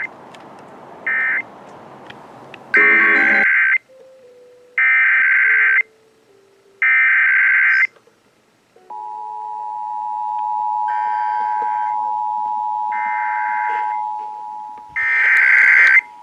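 Emergency Alert System SAME header data bursts, the buzzing digital screech of an EAS Required Monthly Test: two short blips, then three loud bursts of about a second each. About 9 seconds in, the steady two-tone EAS attention signal starts, and three more header bursts sound over it near the end.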